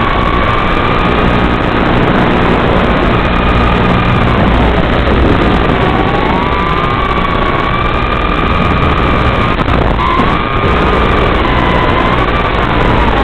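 Micro FPV quadcopter's brushless motors and propellers whining, the pitch dipping and rising again several times with the throttle, over a loud steady hiss.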